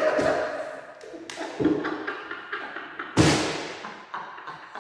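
Several thumps of hands hitting a tabletop during a fit of laughter, the loudest about three seconds in.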